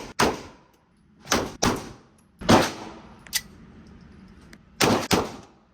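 Gunshots at a shooting range: about six sharp reports, some in quick pairs about a quarter second apart, each with a short ringing tail, plus one fainter shot in the middle.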